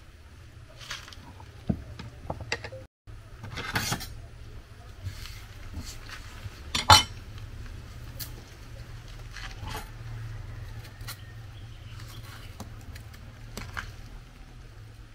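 Plates and a kitchen knife clinking and knocking against each other and the table while plantains are trimmed and peeled. The clinks are scattered and separate, the loudest about seven seconds in.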